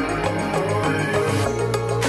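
Background music with a steady beat, a bass line and a melody.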